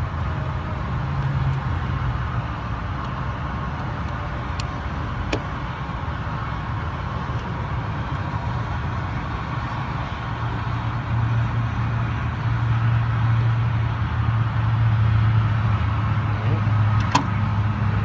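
Steady low machinery drone, growing a little louder about ten seconds in, with a few faint sharp clicks.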